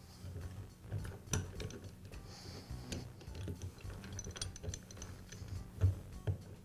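Scattered light metal clicks and knocks from a Karcher pressure washer pump being handled: the pump head pressed down onto the oil reservoir housing against its piston springs, parts shifting and tapping together.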